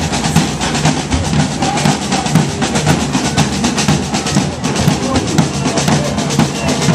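Parade drumming: many drums struck together in a fast, busy, steady beat.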